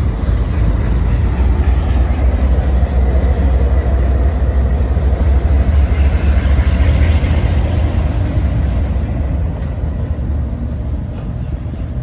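Deep diesel engine rumble of a heavy vehicle, building to its loudest about halfway through and easing off toward the end.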